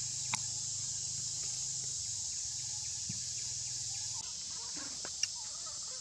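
Steady high-pitched drone of insects in forest undergrowth, running without a break. Two short sharp clicks stand out, one just after the start and one near the end.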